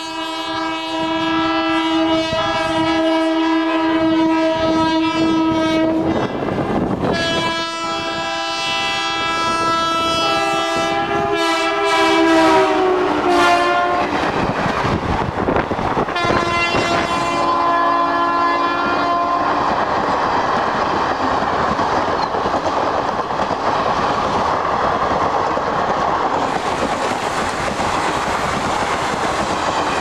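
WAP-4 electric locomotive sounding its horns together in three long blasts as it approaches and passes. The pitch drops at the end of the second blast, and the third blast is lower. After that the coaches roll past with a steady rumble and the clickety-clack of wheels over rail joints.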